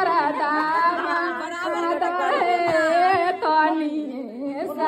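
Several voices singing together, their lines overlapping.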